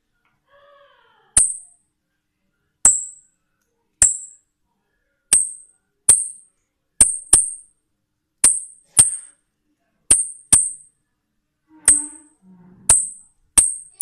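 Hand-made wooden zirlo bird call, a hunter's lure imitating the thrush's thin high call, worked by hand to give about fourteen short, very high chirps. Each chirp starts with a sharp click, and they come singly or in quick pairs at irregular intervals.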